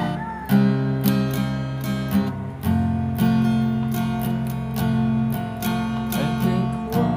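Acoustic guitar strummed in a steady rhythm, playing a chord progression as an instrumental intro.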